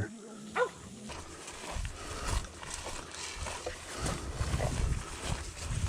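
Texas Longhorn cows and calves lowing, a short call under a second in, then low uneven rumbling calls from about two seconds in.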